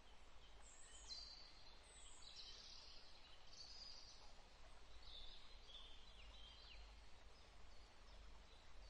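Near silence: quiet room tone with faint, short high chirps that fall in pitch, heard several times.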